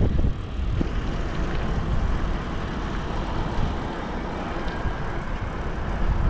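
Steady wind rush on the microphone with road and tyre noise from riding a bicycle on asphalt.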